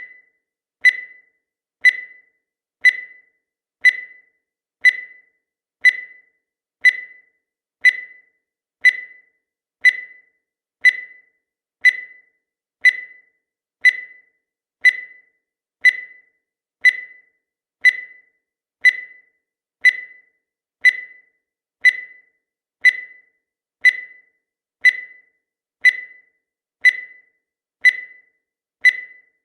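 Countdown timer sound effect: a short, high beep once a second, each dying away quickly, in a steady even rhythm.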